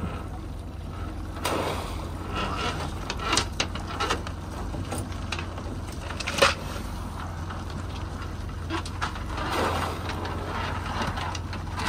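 Wire-mesh trap heaved over the side of an aluminium boat and into the water: a few knocks and clatters, the sharpest about six and a half seconds in, and a splash as the trap goes in. Under it all is the steady low hum of the idling outboard motor.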